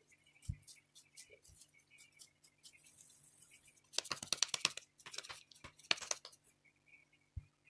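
Hands rolling raw minced-beef köfte mixture into a ball in a glass bowl: faint wet, sticky clicks of the meat against the palms, coming in two short flurries about four and six seconds in, with a soft knock or two against the bowl.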